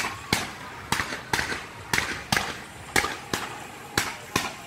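Aerial fireworks going off: a steady string of sharp bangs, about two a second and often in pairs.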